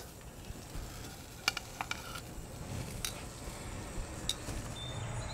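Ham steak sizzling faintly on a hot charcoal kettle grill grate, with a few light clicks of metal tongs against the grate.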